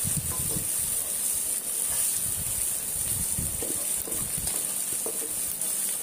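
Chopped onions and ginger-garlic paste frying in oil with a steady sizzle, as a wooden spatula stirs and scrapes them around a nonstick pot.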